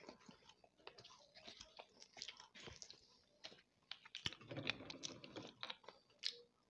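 Close-miked chewing of baked clay pot crumbles: faint, scattered crunches and clicks from the mouth, with a denser stretch of crunching about four and a half seconds in.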